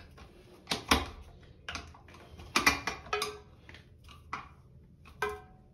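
A screwdriver tightening the screw of a plastic toilet-seat hinge: irregular clicks and ticks as the screw turns and the hinge shifts, two of them with a brief squeak.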